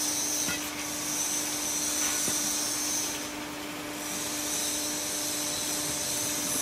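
Electric gear motors of a block machine's pallet transfer conveyor running with a steady hum while they carry a pallet board along the rails toward the stacker. A single light click comes a little over two seconds in.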